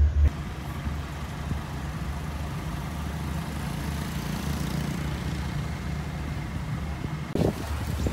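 Steady low hum of a vehicle's engine and road noise, heard from inside a car driving along a road. Near the end it gives way to irregular wind buffeting on the microphone.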